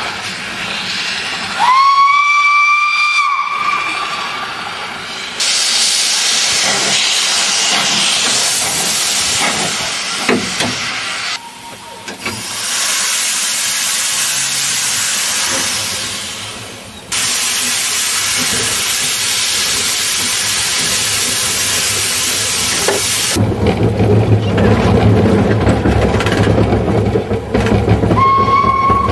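Steam locomotive whistle blown once for about two seconds, followed by long stretches of loud steam hissing with several abrupt breaks. Near the end a low engine rumble takes over as diesel locomotives pass, with a short whistle tone at the very end.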